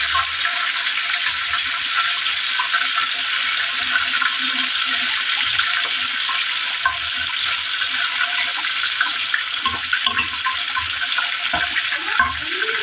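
Spring rolls frying in hot oil in a pan: a steady sizzle.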